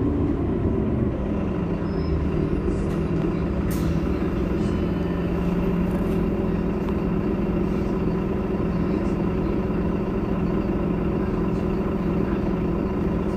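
Heuliez GX 327 city bus idling at a standstill, its engine running steadily with a low, even hum.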